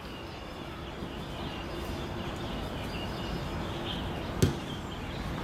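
Background noise of a ball game with faint distant voices, and a single sharp knock a little past four seconds in.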